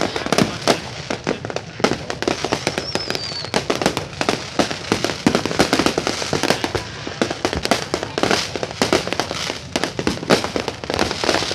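Aerial fireworks going off in a dense, continuous volley of bangs and crackles, with a falling whistle about three seconds in.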